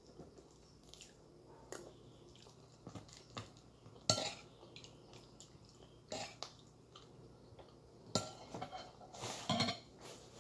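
Metal spoon and fork clinking and scraping against a ceramic plate during eating, with a few sharp clinks, the loudest about four and eight seconds in, and a quick cluster of clicks near the end.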